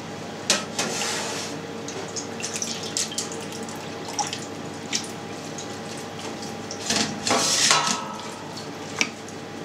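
Wet feta curds being spooned into a plastic cheese mould with a slotted spoon, the whey trickling and dripping off them through the drainage tray, with light taps of the spoon against the mould. A louder wet splashing comes about seven seconds in as the curds are pushed down in the mould; a faint steady hum runs underneath.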